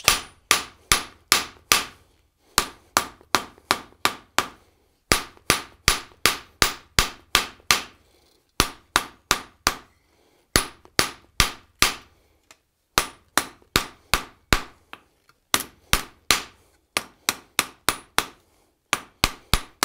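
Hand hammer striking a hot half-inch square steel bar on an anvil, a run of sharp blows about two to three a second with short pauses between runs, each blow with a brief high ring. This is drawing out the bar by hand to lengthen it into a hook.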